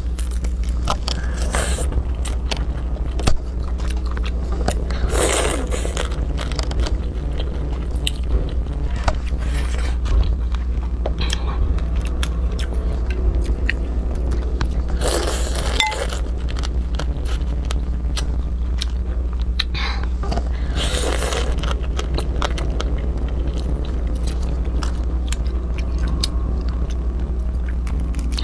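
Small crabs in spicy chili sauce being cracked apart by hand and eaten close to a clip-on microphone: a steady run of shell crunches, bites and wet sucking sounds, with a few longer, louder slurps, over a steady low hum.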